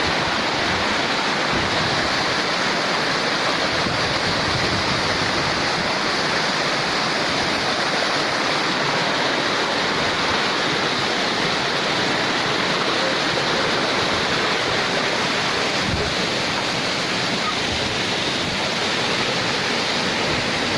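Waterfall: a steady rush of falling water with no let-up or swell.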